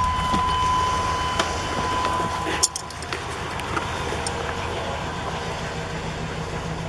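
1997 Chevy Silverado pickup idling with a steady low hum. A steady high-pitched tone runs alongside it and stops with a click about two and a half seconds in.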